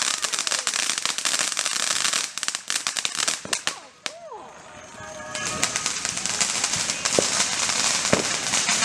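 Consumer fireworks crackling: a dense run of rapid pops and crackles, a short lull about four seconds in, then crackling again.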